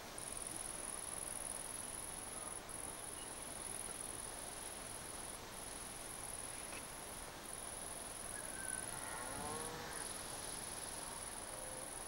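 Insects shrilling in a steady, very high-pitched drone that breaks off briefly every two or three seconds. A faint animal call sounds about nine seconds in.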